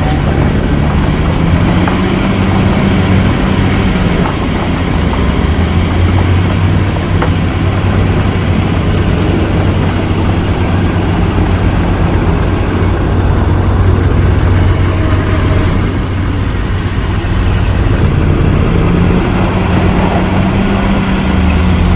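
Heavy construction machine's diesel engine running steadily under load, its note rising and falling briefly a couple of seconds in and again near the end.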